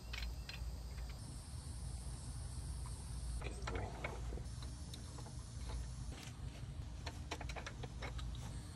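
Scattered faint metallic clicks and taps as a copper-pipe flaring tool and its flaring bar are handled, over a steady low hum.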